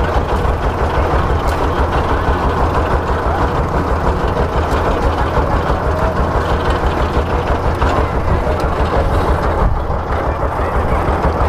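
Engine of a sugarcane juice crusher running steadily close by, with a fast, even low pulse.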